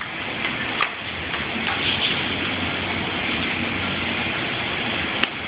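Table tennis rally: the celluloid ball clicking off paddles and the table a few times in the first two seconds, then one sharp click about five seconds in, over a steady background rumble.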